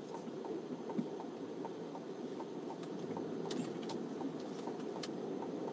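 Inside the cab of a 2023 Chevy Colorado ZR2 pickup moving slowly: a steady low rumble of engine and road noise, with a turn-signal indicator ticking evenly about three times a second. A few sharper clicks come in past the middle.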